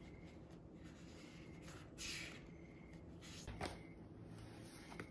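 Quiet room with a soft rustle about two seconds in, then a light knock and another small click near the end.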